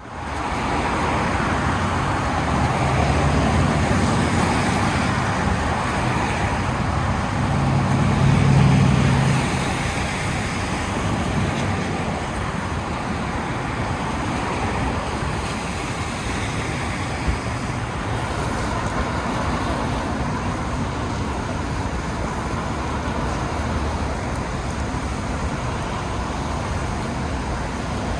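Steady street noise of rain and city traffic in a storm. A low rumble swells and fades between about three and ten seconds in, and there is one sharp click around the middle.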